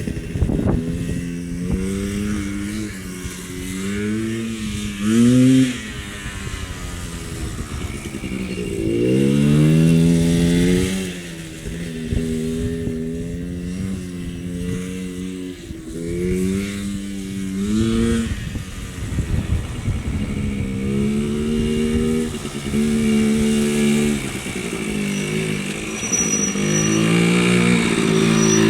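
Yamaha Blaster ATV's 195cc two-stroke single-cylinder engine revving up and dropping back several times as the quad is ridden, its pitch rising and falling with the throttle; the strongest pull comes about nine seconds in. The engine has a freshly rebuilt top end.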